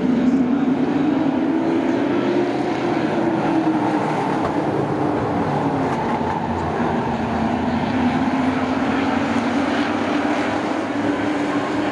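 Several racing trucks' engines running at speed around a short oval track. Their pitch rises and falls gently and the level stays loud and steady.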